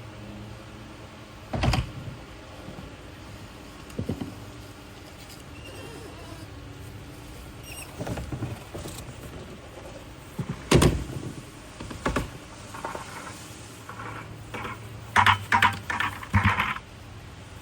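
Scattered knocks and clatters over a steady low hum, with a quick run of several hits near the end.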